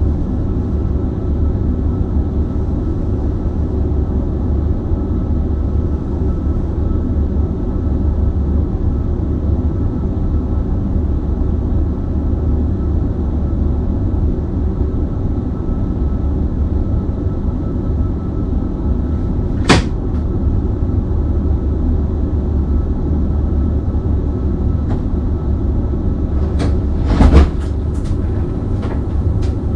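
Steady low hum of a stationary BLS RABe 515 double-deck electric multiple unit, its on-board equipment running while it stands at a platform. A few sharp clicks and knocks come in the second half.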